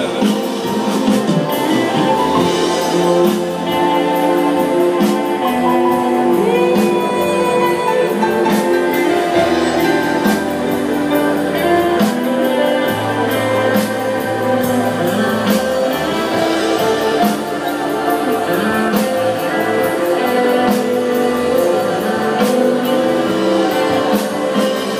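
Worship music from a band: sustained chords over a steady beat, with voices singing.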